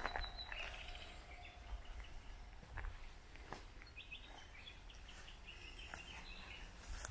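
Quiet woodland ambience: short bird chirps now and then, over a few irregular soft footsteps or crackles in the grass and a steady low rumble.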